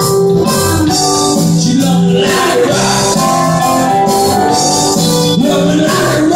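Live band playing loud through a PA: electric guitars, electric bass, keyboard and drums.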